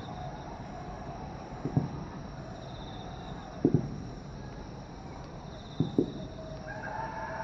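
Distant aerial firework shells bursting: dull booms about every two seconds, the last two close together near the end.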